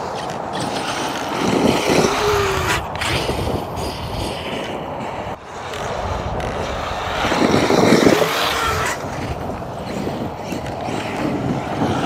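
ARRMA 8S brushless electric RC trucks running over loose dirt: a steady rush of motors and tyres, with two louder surges about two and eight seconds in as they accelerate and throw up dirt.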